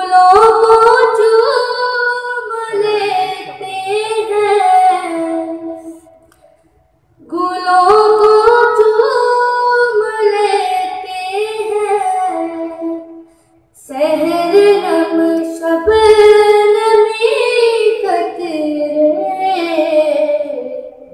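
A child's voice singing a naat in three long, ornamented melodic phrases, with a short pause for breath between them.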